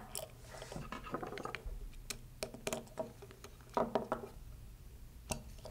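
Small metal clicks and ticks as socket head screws and washers are driven into an aluminium servo mounting plate with a hex key, with light handling of the parts. The ticks come irregularly, a few in quick clusters.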